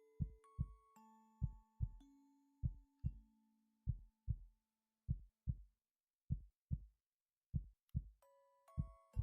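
A person's heartbeat: slow lub-dub pairs of short, low thumps, about one pair every 1.2 seconds. Soft held music notes play over it.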